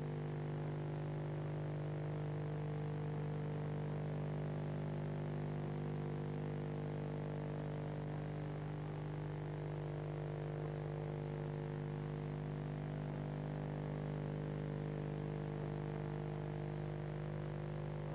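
Steady electrical hum made of several held tones that never change.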